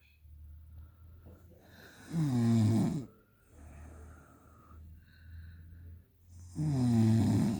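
A young woman snoring in her sleep: two loud snores about four seconds apart, each about a second long and falling in pitch, with softer breathing between them.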